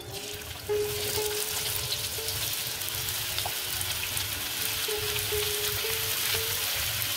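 Sliced onions dropped into hot oil in a kadhai and sizzling. The frying sizzle jumps up loudly less than a second in as the onions land, and then runs on steadily.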